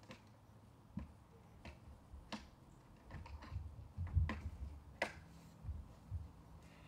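Scattered plastic clicks and knocks from a Bissell vacuum cleaner being handled while switched off, with a few dull thumps in the middle.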